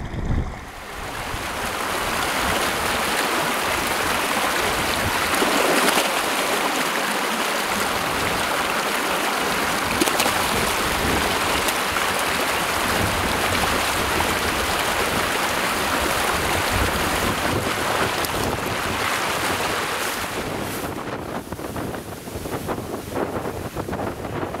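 Shallow stream rushing over rocks in a riffle, a steady hiss of moving water; it drops lower and turns uneven about twenty seconds in.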